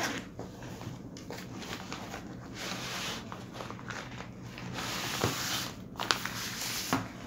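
Clear plastic packaging bag crinkling and rustling as an electric mosquito racket is slid out of it, with a few sharp clicks in the second half.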